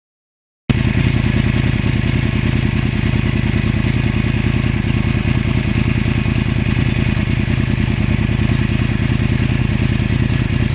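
2009 Yamaha R1 crossplane inline-four running at steady revs through an aftermarket exhaust, with the uneven, lumpy beat typical of its crossplane crank. It starts abruptly just under a second in and holds without revving up or down.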